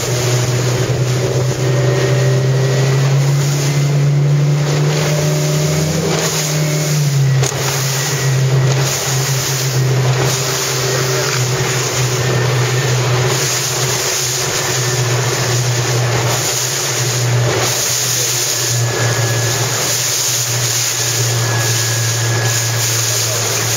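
Motorboat engine running steadily, with wind and water noise, its pitch dropping slightly about seven seconds in.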